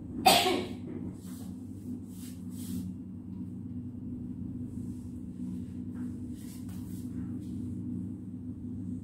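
A steady low hum throughout, with one short, loud burst of noise just after the start that fades within half a second, and a few faint brief rustles after it.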